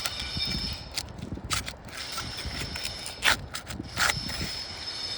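A handful of short scuffs and scrapes on an asphalt shingle roof, the loudest a little past three seconds in.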